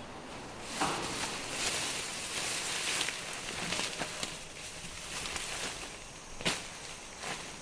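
Leafy branches rustling and crackling as an orangutan handles them in its cage, with a few sharp snaps or clicks, one about a second in and two more near the end.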